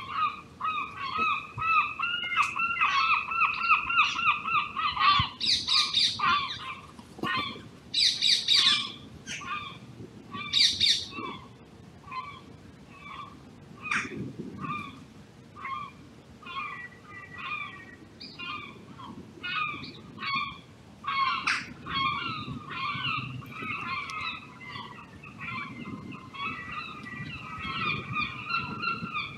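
Animal calls: rapid runs of short, harsh, pitched notes throughout, with several louder raspy calls in the first half.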